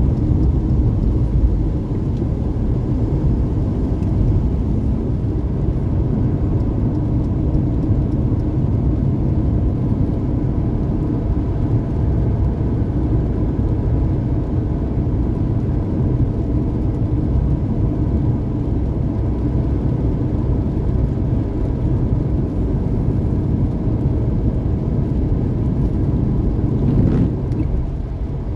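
Steady engine and tyre road noise of a car cruising at highway speed, heard from inside the cabin; it eases slightly near the end.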